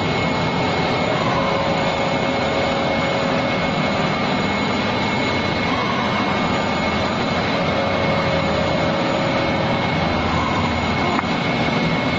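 Injection moulding machine running: a steady, even machine noise with a thin, constant high whine over it.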